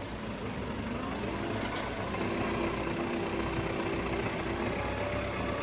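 TL100 tractor's diesel engine running steadily. A faint whine comes in about two seconds in and shifts higher in pitch near the end.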